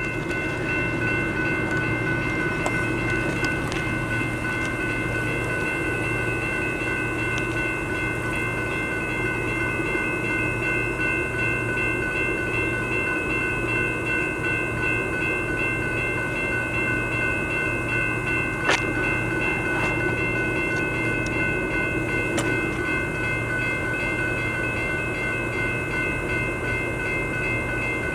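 Autorack freight train rolling past a grade crossing with a steady rumble, while the crossing bell rings continuously. A single sharp bang stands out about two-thirds of the way through.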